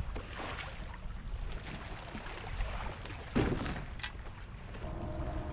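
Water slapping against a kayak's hull beside a concrete pylon, with wind rumbling on the microphone and a brief thump about three and a half seconds in.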